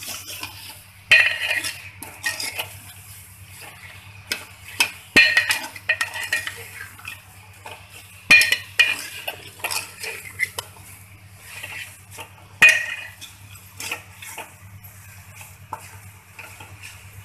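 Steel spoon stirring mutton pieces in a stainless steel pot, scraping and clinking against the metal, with four loud clanks a few seconds apart.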